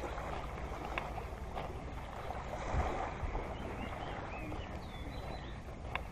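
Small waves lapping on a sandy, pebbly shore with wind rumbling on the microphone. A couple of light clicks and a few faint short chirps in the middle.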